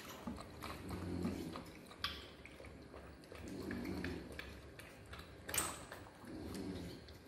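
Baby macaques sucking milk from baby bottles: small wet clicks and slurps, with a sharper click about five and a half seconds in. A soft low humming sound swells three times underneath.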